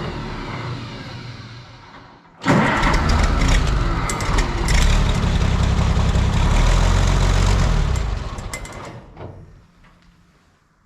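Oliver 77 tractor's six-cylinder engine catching and running for a moment, then dying away. It fires up again suddenly about two seconds in and runs for about six seconds before fading out. The engine is starving for fuel and won't keep running.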